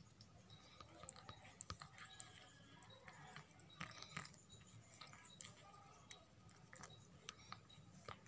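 Tabby cat grooming itself, licking and nibbling its fur: faint wet mouth clicks and rasps at irregular intervals.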